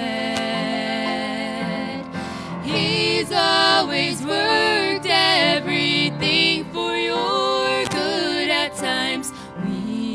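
A woman singing a gospel song into a microphone, accompanied by a grand piano.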